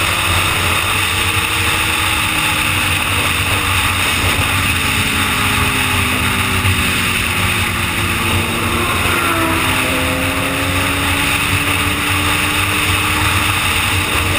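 Steady wind and road rush at highway speed on a 2011 Suzuki GSX-R, with the bike's inline-four engine running underneath, its note drifting slowly and changing about nine seconds in.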